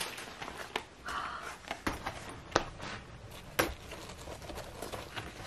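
Faint handling sounds of a Fjällräven Kånken backpack: soft fabric rustling and a few scattered light clicks and taps.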